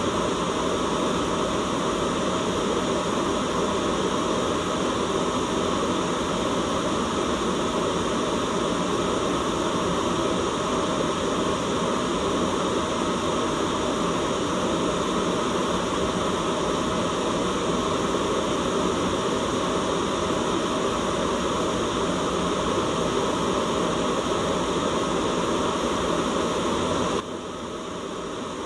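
Continuous white noise, a steady even hiss. Near the end it suddenly drops in level, then slowly climbs back.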